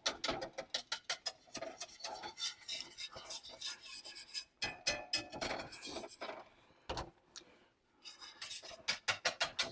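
Wire whisk scraping and clicking against a stainless steel pan in quick, rhythmic strokes, several a second, stirring a still-watery cream sauce as it reduces. The strokes pause briefly about two-thirds of the way through.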